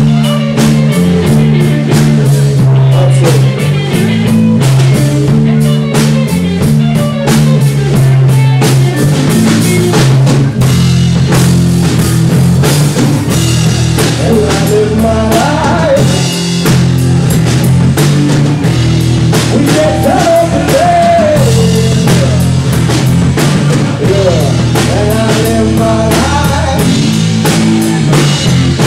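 A rock band playing live and loud on drum kit and electric guitar, with a driving beat of constant drum and cymbal hits over a steady low riff.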